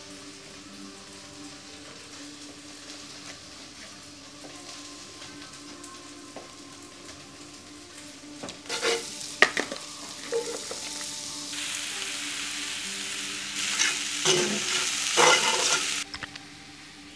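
Food sizzling in a hot frying pan while being stirred, with scattered clicks and scrapes of the utensil against the pan. It starts about halfway through, grows louder, and cuts off suddenly about a second before the end. Before it there are only faint steady background tones.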